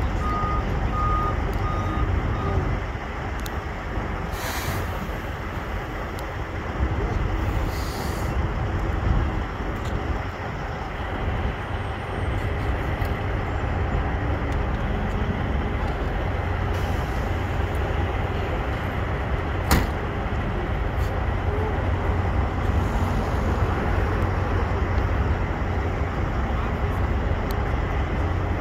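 Steady low rumble of an idling diesel truck engine. A reversing beeper sounds over the first couple of seconds, short hisses of air come twice in the first ten seconds, and there is a single sharp click about two-thirds of the way through.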